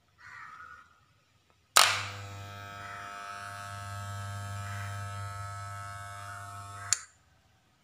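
Andis corded hair trimmer switched on with a sharp click, buzzing steadily for about five seconds, then switched off with a click.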